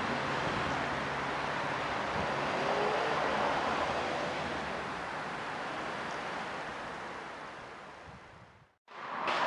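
A steady outdoor rushing noise, like traffic or wind, that fades away over the last few seconds and drops to silence just before the end.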